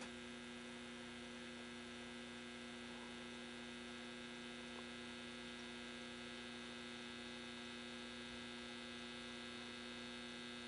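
Steady electrical hum from the speaker of a Philco 39-30 tube radio on its first power-up after recapping, with no station tuned in. It is a low, unchanging hum with a stack of higher overtones.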